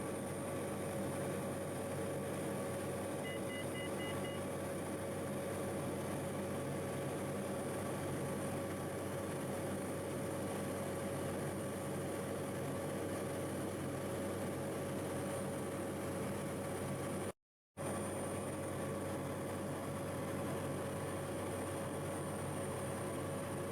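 Steady engine drone with a constant low hum and a few held tones. Four short faint beeps come about three seconds in, and the sound drops out for a moment just past the middle.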